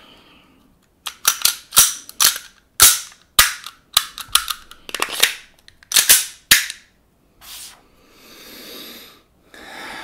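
A quick run of sharp plastic-and-metal clicks and snaps from a WE Glock 19 gas blowback airsoft pistol being handled and reassembled after its stock slide lock lever is refitted, with parts seating and the action being worked. After about five seconds the clicks give way to softer handling rustle.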